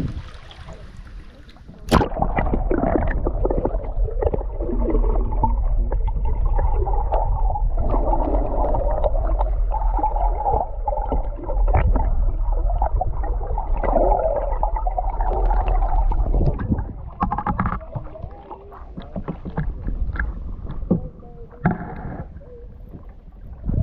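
Water sloshing and gurgling close to the microphone while kayaking, with short splashes from paddling. A heavy low rumble sets in about two seconds in and drops away around three-quarters of the way through.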